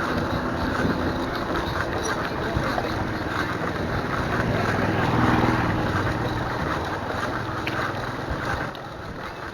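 Outdoor road noise: motor traffic hum mixed with wind rumbling on the microphone. It swells a little around the middle of the clip and drops quieter near the end.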